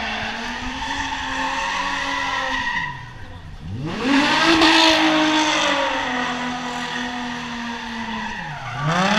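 A drift car's engine held at high revs while its rear tyres spin and squeal in a long smoky slide. About three seconds in, the revs drop briefly and then climb sharply as the car slides past close by. Near the end the revs dip and rise again.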